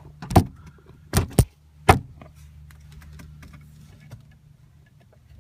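Sharp clicks and knocks of hard plastic parts being handled while freeing the airbag module's wiring behind a steering wheel: four loud ones within the first two seconds, then fainter small clicks.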